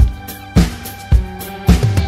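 Background music with a steady drum beat, a little under two hits a second, over held instrument notes.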